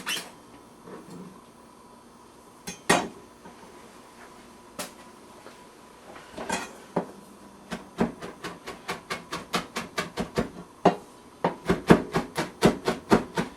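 Chef's knife mincing fresh herbs on a cutting board: a few separate knocks, then a steady run of quick chops, about four a second, from about six seconds in.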